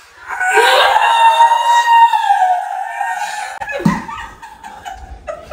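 A woman screaming in fright at a toy rat prank: one long, high scream of about three seconds, then trailing off into shorter, falling cries.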